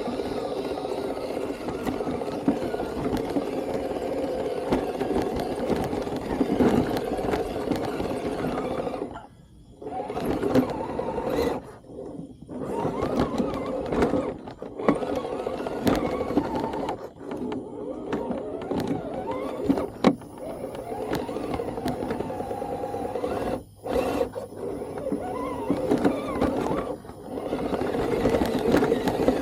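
Motor and gear drive of a radio-controlled Toyota model car running with a steady hum, cutting out briefly several times as it stops and starts again.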